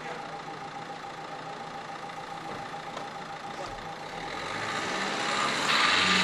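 Renault hatchback's engine running at idle close by, then the car pulls away past the microphone, its engine and tyre noise swelling near the end.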